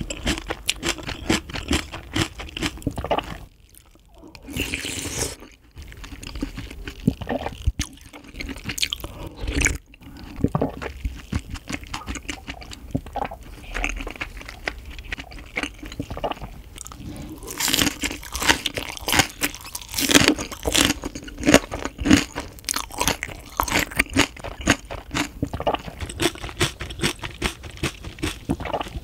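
Close-up chewing and crunching of fresh green onion kimchi: many quick, crisp crunches, with short pauses between mouthfuls.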